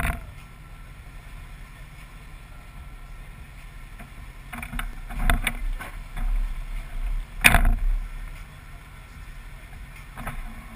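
A GMC K1500 pickup idling with a low steady rumble, heard through its hood-mounted camera. There is a sharp knock at the start and a few heavy thumps and knocks around the middle as the camera on its mount is bumped.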